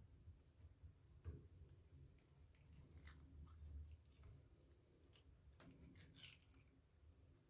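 Faint, scattered clicks and rustles of small parts and materials being handled, over a low rumble.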